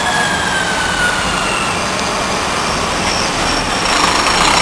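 MAX light rail train running along the street with a faint electric whine that slowly falls in pitch over the first couple of seconds, over steady traffic noise. About four seconds in, a city bus passing close adds louder engine and road noise.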